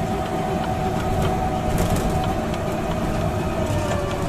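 Amusement-ride vehicle running: a steady low rumble with a thin whine that sags slightly in pitch near the end, and scattered light clicks.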